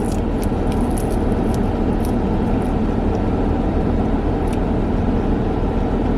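Steady low rumble of a car idling, heard from inside the cabin, with a few faint clicks in the first couple of seconds and one more near the end.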